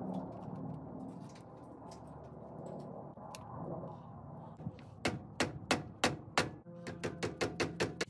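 Quiet handling of tools and bolts, then, from a little past halfway, about a dozen sharp metallic knocks with a short ring, roughly four a second, as the old front wheel hub assembly is knocked and worked free of the steering knuckle.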